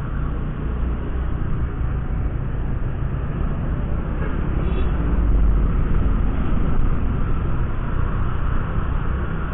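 Wind buffeting on the microphone and road noise from a Honda Vario 125 scooter riding through town traffic, a steady low rumble that swells a little about halfway through.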